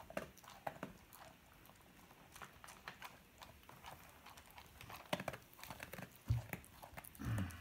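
A dog and a cat crunching dry kibble from a plastic tub: a run of many short, sharp crunches. Near the end come two louder low thumps, the second one longer.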